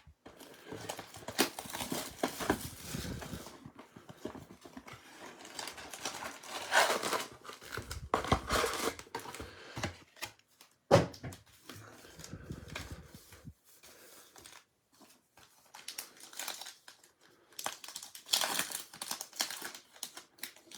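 Trading card pack wrappers and box packaging being torn open and crinkled by hand, in irregular bursts of rustling with one sharp knock about eleven seconds in.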